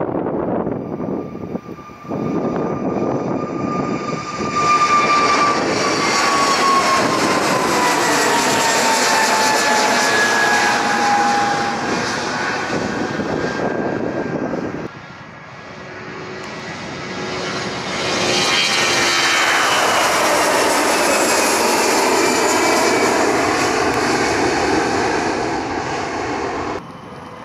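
Two Airbus A320-family jet airliners at takeoff thrust, one after the other. Each is a loud, steady jet engine noise with whines that fall in pitch as the aircraft climbs away. The first dies down about halfway through and the second rises in its place.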